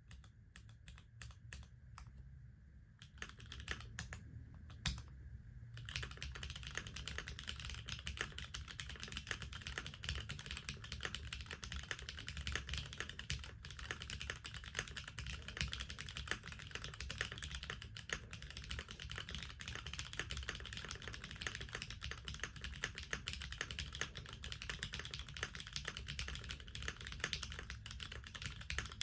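Keycult 1/60 mechanical keyboard being typed on: lubed Gateron Brown tactile switches on a gasket-mounted aluminium 5052 leafspring plate, with GMK keycaps. Scattered single keystrokes at first, then fast continuous typing from about six seconds in.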